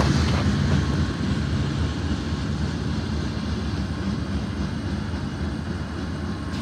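Freight train of covered hopper cars rolling away on the rails, a steady rumble of wheels and cars that slowly fades as the end of the train recedes.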